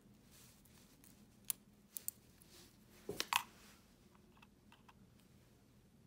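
Handling noises from a Kailh GM 4.0 mouse switch in a small plastic tester holder: a few sharp clicks, then a louder clatter of knocks about three seconds in, followed by a few faint ticks.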